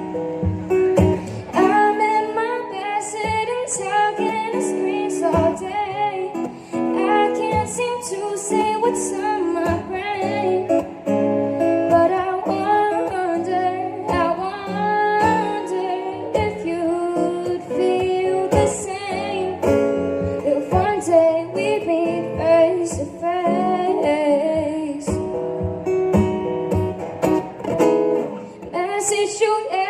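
Music: a woman singing a song over plucked acoustic guitar.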